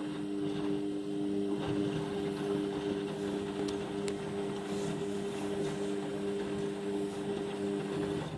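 Indesit washing machine running through its rinse, a steady motor hum over a rushing noise that cuts off abruptly about eight seconds in.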